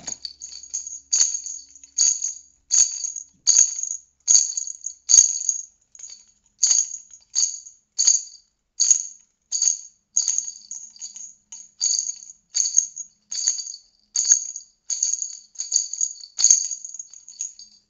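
Homemade handbell tambourine, a ring fitted with small jingle bells, shaken repeatedly at about two shakes a second, each shake a bright, high jingle.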